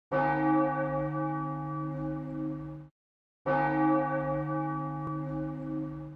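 A deep church bell tolling as an intro sound effect. Two identical bell strokes, each starting suddenly, ringing for nearly three seconds, then cut off abruptly into silence.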